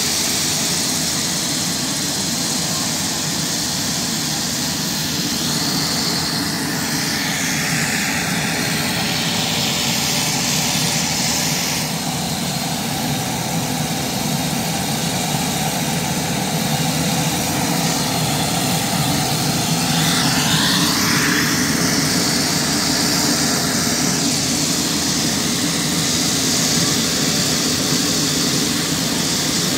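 Steady turbine aircraft noise on an airport ramp: the whine and rush of a single-engine turboprop taxiing close by, swelling a little about two-thirds of the way through.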